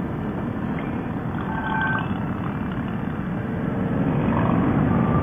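Harley-Davidson V-twin touring motorcycle running at a steady cruising speed under wind rush, heard from the rider's seat as a dense, even low rumble.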